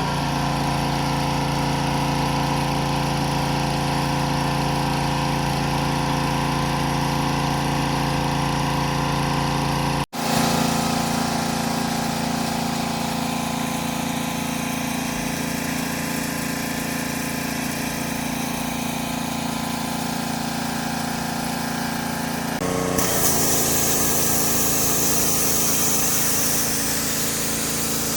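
Pressure washer running steadily, its motor and pump holding an even tone under the hiss of the water jet. The sound drops out for an instant about ten seconds in and changes character, and near the end the jet's hiss grows much stronger as it strikes the floor.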